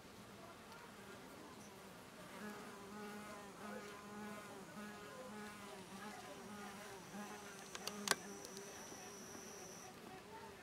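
Faint, low insect buzzing that comes and goes in short, wavering pulses, with a sharp click about eight seconds in and a thin high steady whine from about six seconds in to near the end.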